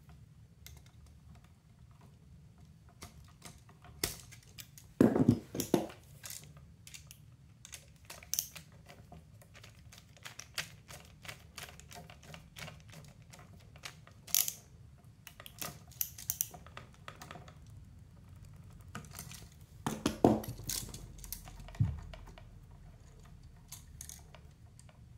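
Scattered small clicks and taps from hand-wiring an electrical outlet: the neutral wire is hooked around the outlet's screw terminal and the screw is tightened with a screwdriver. There are louder clusters of knocks about five seconds in and again about twenty seconds in.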